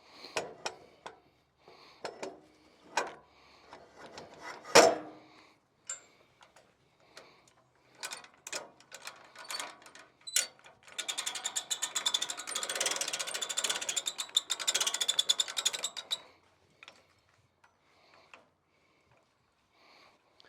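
Metal tool clinks and knocks, one loud clank about five seconds in, then a ratchet wrench clicking rapidly for about five seconds as a bolt is run in or out on the winch mount.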